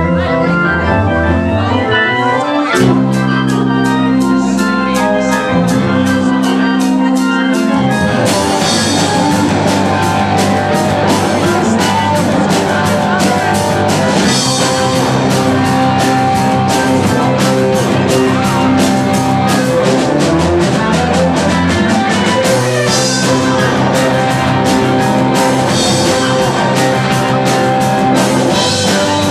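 Live rock band playing an instrumental passage, with electric guitar, keyboard and drum kit. The beat is steady throughout, and the cymbals fill out about eight seconds in.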